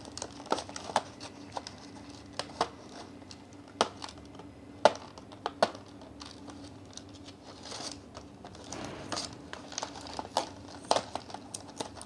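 Toy-car packaging being handled and opened: cardboard and plastic crinkling and rustling, with scattered sharp clicks and taps, the loudest about five seconds in.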